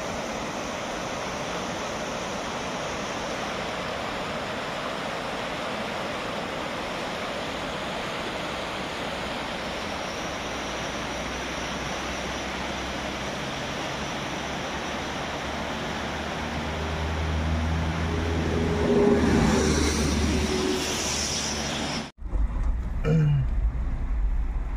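Steady rushing of a muddy river in flood after heavy rain. In the second half an engine hum grows louder over the water, and near the end the sound breaks off abruptly into a low rumble.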